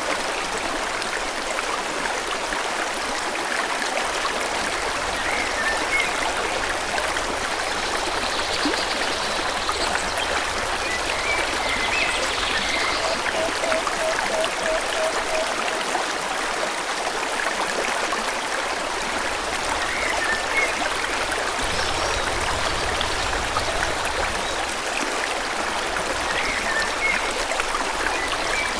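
Forest river flowing steadily, with brief bird chirps every few seconds. About halfway through comes a short run of evenly spaced low notes.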